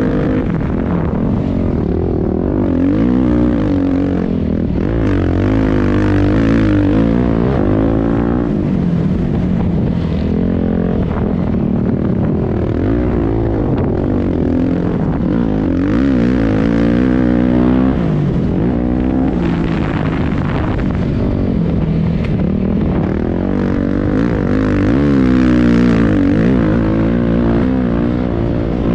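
Beta 350 Race Edition's four-stroke single-cylinder dirt bike engine, ridden on a motocross track: it revs up and down over and over, the pitch rising and falling with throttle and gear changes.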